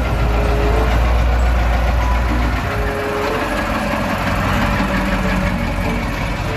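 A steady machine running noise with a strong low hum; the hum drops away about two and a half seconds in while the rest of the noise carries on.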